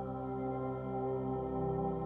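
Ambient background music with long sustained tones.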